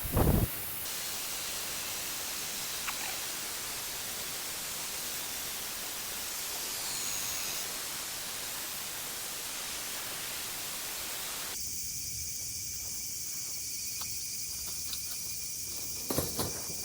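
A steady, even hiss for about ten seconds, then a sudden change to insects, likely crickets, calling in steady high tones with a few small clicks. A low thump comes at the start and another near the end.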